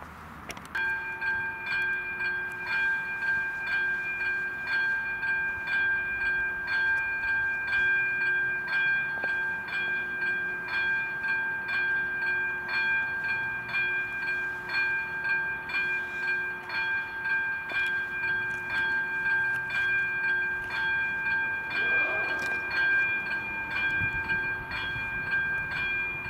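Level-crossing electronic warning bell of an AŽD 97 crossing system starting up about a second in and ringing continuously, a bright tone struck in a quick, even rhythm. It signals that the crossing is closing for an approaching train.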